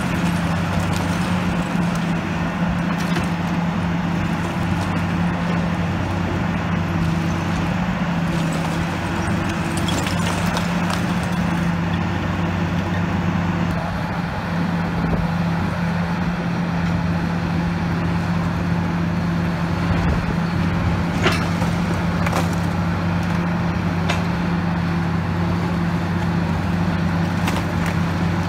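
High-reach demolition excavator's diesel engine running steadily with a constant low hum, as its hydraulic shear works at a brick wall. Scattered sharp knocks and cracks of breaking masonry and falling debris sound over it.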